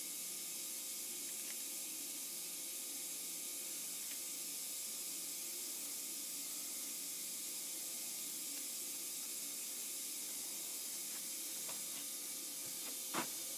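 Steady faint hiss with a low hum of shop background noise, with a few faint light clicks as small metal parts are handled.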